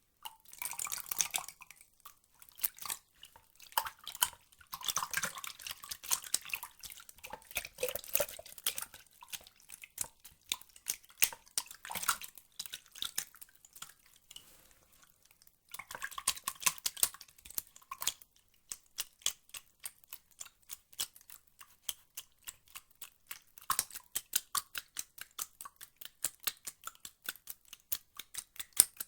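Water dripping and splashing in a small room: a run of short, sharp drips and splashes, irregular at first and turning into a quicker, fairly even patter of drops in the last several seconds.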